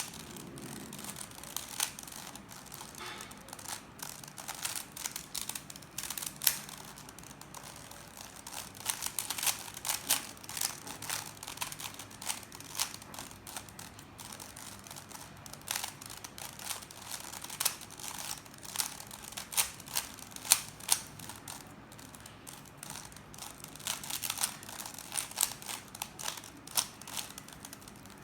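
Plastic 3x3 Rubik's cube being turned fast during a speed solve: its layers click and clack in quick, irregular bursts, with short pauses between runs of turns.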